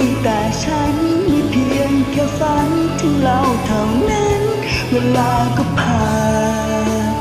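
Karaoke pop song: a voice singing a wavering melody over a backing track with bass and drums.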